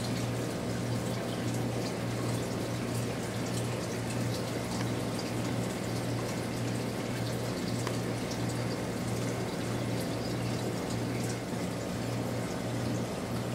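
Reef aquarium water circulating, a steady running and trickling, over a constant low hum, with faint scattered drip-like ticks.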